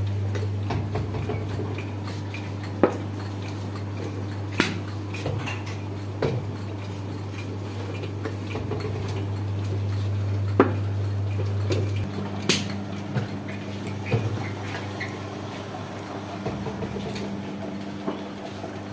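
Clay kulhad cups and tools being handled, making scattered sharp clinks and knocks against a steady low electric hum from the workshop machinery. The hum changes about twelve seconds in.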